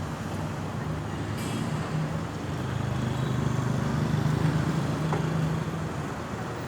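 Road traffic dominated by a passing vehicle's low engine drone, which swells to its loudest a little past the middle and eases off near the end. No siren is sounding.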